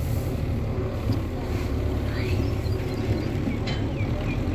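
Belarus tractor engine running steadily at a constant drone, driving a wheat thresher. A few short high chirps come near the end.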